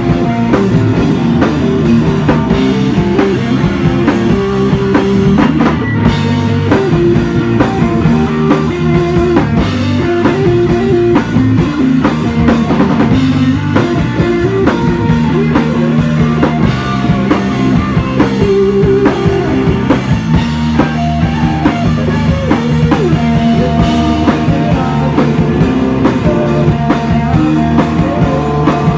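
Live rock band playing loudly: electric guitar and a drum kit, with no singing.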